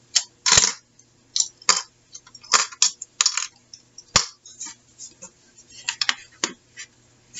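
Metal binder clips and small spring clips being pulled off glued paper pockets and dropped onto a cutting mat: about a dozen irregular clicks, snaps and clinks.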